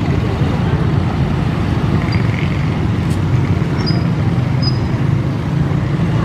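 CC 201 diesel-electric locomotive running steadily at low speed, a loud, even, low rumble, with motorbikes passing close by.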